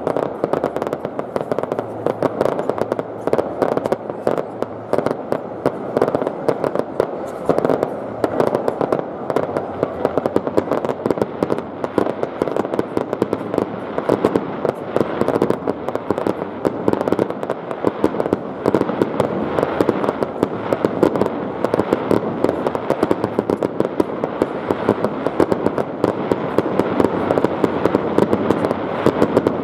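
Fireworks display: a dense, continuous barrage of bursts and crackling with no let-up.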